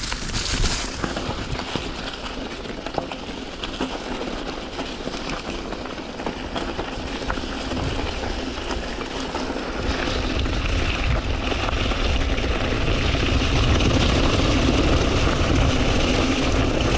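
A mountain bike riding a dirt trail: wind rushing over the camera's microphone with tyre and frame rattle and scattered knocks. The rushing grows louder and deeper from about ten seconds in as speed builds.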